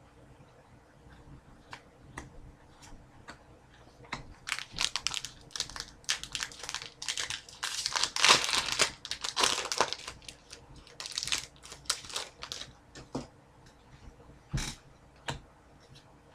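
Foil wrapper of a hockey card pack crinkling and rustling as it is handled, busiest from about four seconds in to about thirteen seconds, with light clicks of trading cards before and after.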